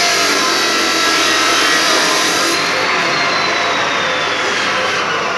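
Three-roll plate bending machine rolling a steel sheet: a loud, steady mechanical noise with a faint high whine that rises slightly and then slowly falls.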